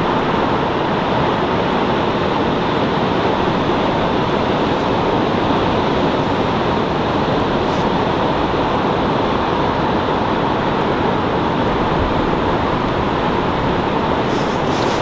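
Surf and wind on an open beach: a steady, even roar with no breaks or distinct events.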